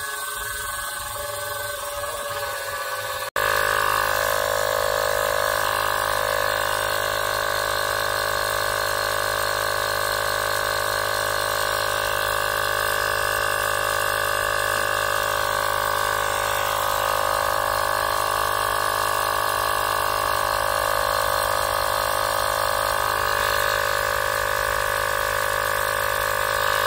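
Air compressor running steadily as it inflates a Kubota BX23S compact tractor's rear tire, the pressure climbing toward about 10 PSI. The drone jumps louder just over three seconds in and then holds steady.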